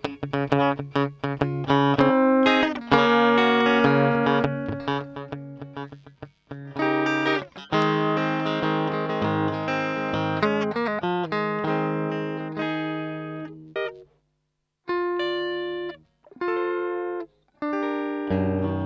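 Electric guitar played through a Kokko compressor pedal that is switched on: a doodle of picked notes and chords that ring out with long, even sustain. A few brief breaks come about two-thirds of the way in, followed by short chords.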